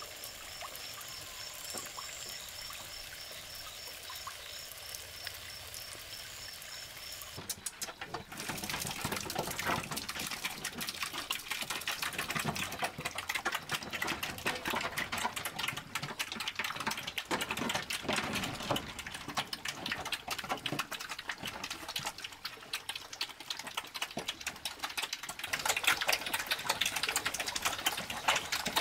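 Night insects chirping with a high, even pulse at about four a second. Then, about eight seconds in, liquid feed is poured from a pot into a trough, and black pigs slurp and chomp at it noisily.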